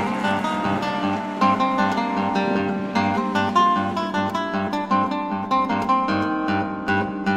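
Background music of a plucked and strummed acoustic guitar, quick notes over a steady pulsing bass beat.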